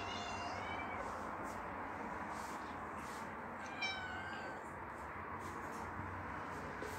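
Domestic cat meowing twice: a short meow at the start and another about four seconds in.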